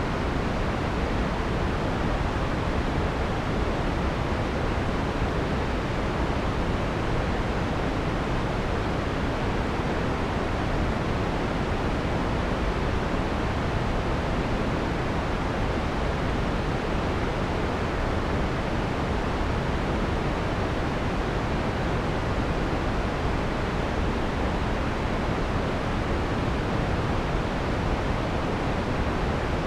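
Steady synthesized white noise with the harsh top end filtered off, leaving an even, soft rush weighted toward the low end, without any change.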